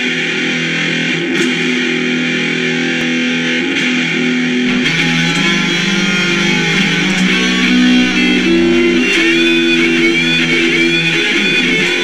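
Electric guitar playing sustained chords. About five seconds in, a lower bass part joins and a higher wavering melodic line comes in over it.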